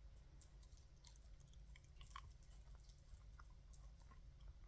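Near silence with faint chewing: a few soft, scattered mouth clicks as a mouthful of spaghetti and meatball is chewed.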